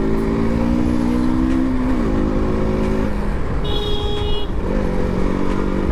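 Sport motorcycle engine pulling hard under throttle, its pitch rising and then dropping at gear changes about two and three seconds in, over steady wind noise. A vehicle horn sounds briefly in the middle.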